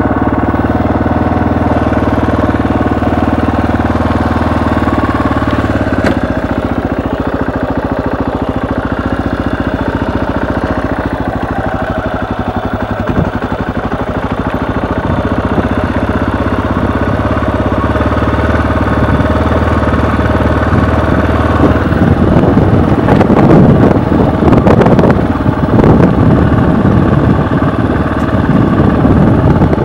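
Dual-sport motorcycle's engine running at low, steady revs while riding, its pitch shifting about six seconds in and again around eighteen seconds. Louder, rougher rushing noise joins over the last several seconds.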